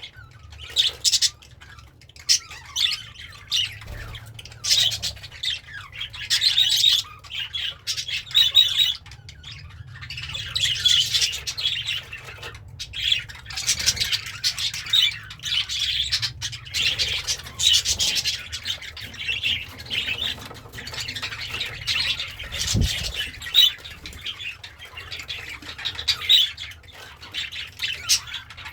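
Pet budgerigar chattering and warbling: a fast run of short, scratchy chirps and squawks with brief pauses between phrases.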